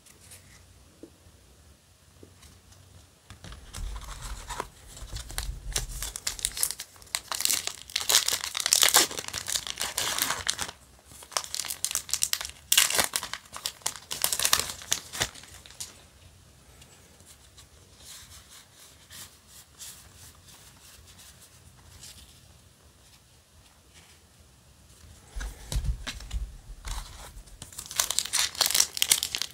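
Foil Yu-Gi-Oh! booster pack wrapper being torn open by hand and crinkled, in bursts of crackling, with a few dull bumps from handling. The crinkling starts a few seconds in, eases off for several seconds in the middle, and picks up again near the end as the next pack is opened.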